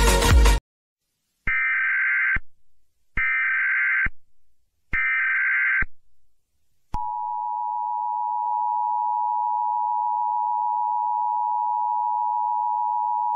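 Music cuts off, then three short bursts of Emergency Alert System data-header tones, each about a second long with a pause between. About seven seconds in, the steady EAS attention tone begins and holds.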